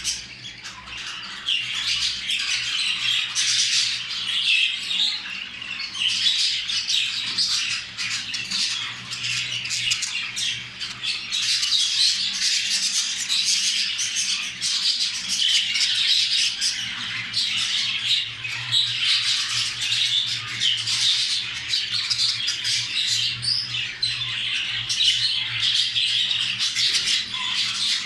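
Budgerigars chattering and squawking without a break in a dense, scratchy warble: the courtship chatter of a mating pair. A low steady hum runs underneath.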